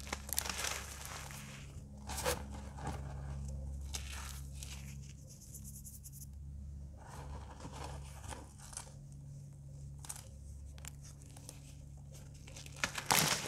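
Crumbly blocks of dried coloured cornstarch being crushed and broken in the hands, giving irregular dry crunches and crumbling crackles. A sharp loud crunch comes near the end. A low steady hum runs underneath.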